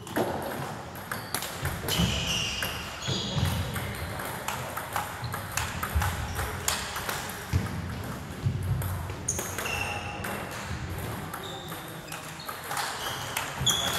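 Table tennis balls clicking sharply and irregularly against bats and table in rallies, with short high squeaks in between.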